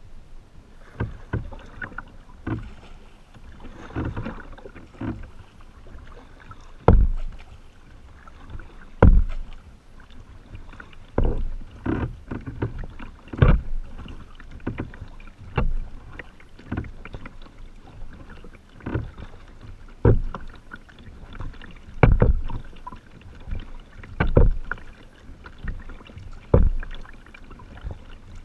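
Kayak paddle strokes in calm water: the blade dipping, pulling and splashing about once every one to two seconds, with drips between strokes. Some heavier strokes land with a dull low thump.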